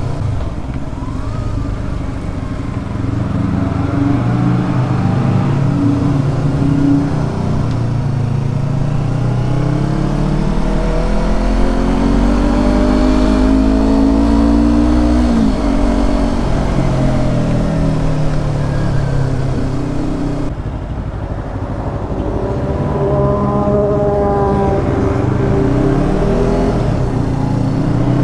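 Yamaha R25's parallel-twin engine running through a Proliner TR1R slip-on exhaust, its pitch climbing for several seconds, dropping sharply about fifteen seconds in, then climbing again near the end.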